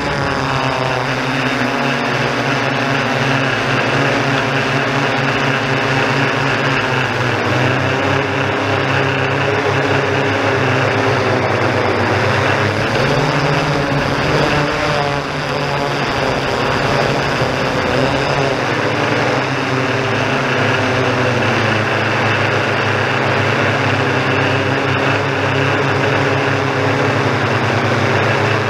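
Yuneec Typhoon G quadcopter's electric motors and propellers droning steadily, heard up close from its own onboard camera. The pitch shifts as the rotors change speed, gliding down at the start and wavering about halfway through.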